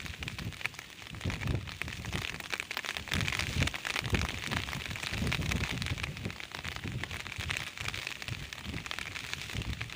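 Wind buffeting the microphone in uneven low gusts, over a steady crackling hiss.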